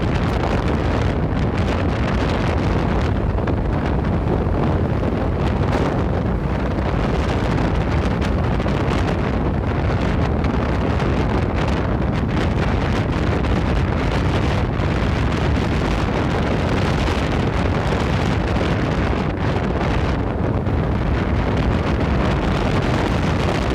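Steady wind noise buffeting the microphone on a moving motorcycle, mixed with the bike's running and road noise.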